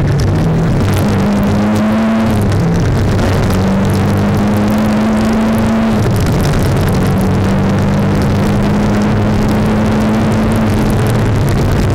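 Turbocharged Mini's engine at full throttle, heard from inside the cabin, accelerating through the gears. Its note breaks and drops at gear changes about two and a half, six and eleven seconds in.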